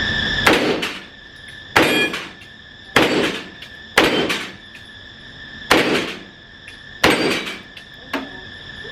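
Six suppressed gunshots, unevenly spaced over about seven seconds, each with a short echoing tail.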